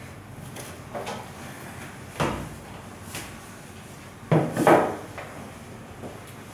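Knocks and bumps of hand cleaning in a shower and at a washbasin: a sharp knock about two seconds in and the loudest pair of bumps about four and a half seconds in.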